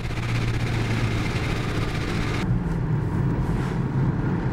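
2008 Ford Mustang GT's V8 engine running steadily with road noise while driving, heard as a low drone from inside the car; the higher hiss drops away abruptly about halfway through.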